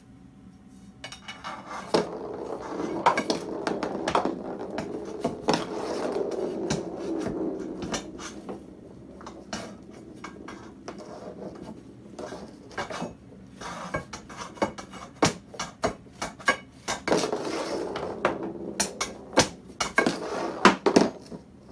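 Steel tire irons clinking and scraping as they pry at the base of a heavy steel gun safe, with golf balls knocking on a wood-laminate floor. Quick sharp clicks and knocks throughout, with two longer stretches of scraping, one after about two seconds and one near the end.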